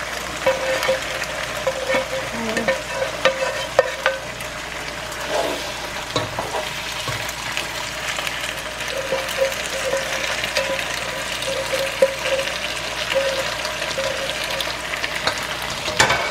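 Chicken wings deep-frying in oil in a skillet, a steady sizzle with scattered crackling pops, while a spoon stirs penne in cream sauce in a pot, clinking now and then against the pot.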